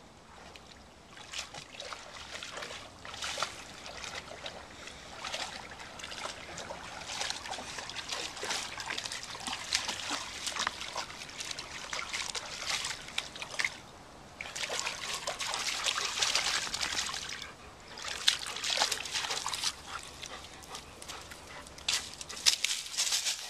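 A German Shepherd wading through a shallow creek, its legs splashing and sloshing the water in an uneven patter, with a couple of short lulls.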